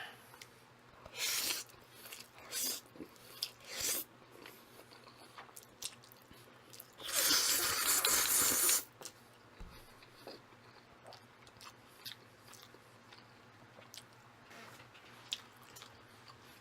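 Close-miked eating of instant jjajang ramen noodles: mouth sounds of chewing, with a few short noisy bursts early and one longer noisy stretch of nearly two seconds about seven seconds in.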